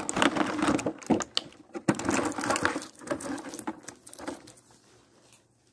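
Cardboard box and plastic blister tray being handled and pulled about: crinkling and rustling with many light clicks, which stops about five seconds in.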